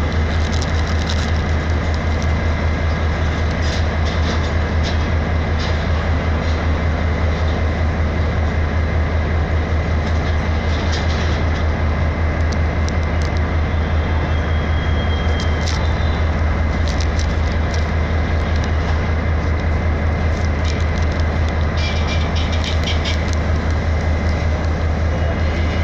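Canadian-built single-cab diesel-electric locomotive idling at a standstill: a loud, steady low engine rumble, with faint light clicks now and then.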